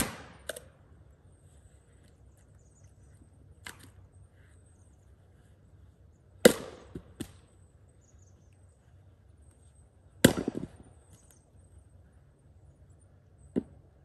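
Axe splitting firewood on a chopping block: three loud, sharp strikes a few seconds apart, with lighter knocks of wood in between.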